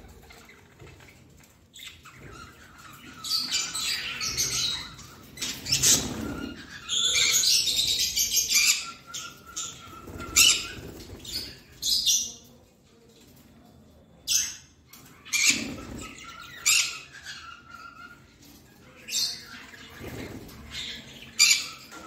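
Budgerigars chirping and chattering: scattered sharp chirps and short bursts of warbling chatter, with the longest, densest burst about seven seconds in.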